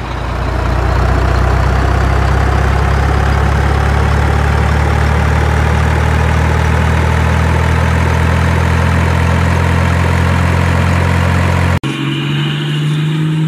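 Truck engine sound running steadily with a deep drone, its pitch creeping slowly upward. Near the end it cuts off abruptly and a different engine sound takes over.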